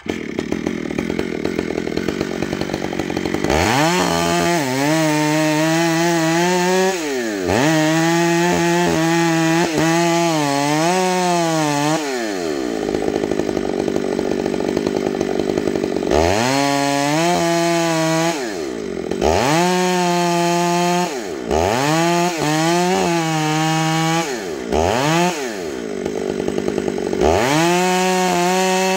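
Two-stroke chainsaw cutting through the trunk of a tree being felled: the engine revs up to full throttle again and again, its pitch wavering and sagging as the chain bites into the wood, then falling away between runs.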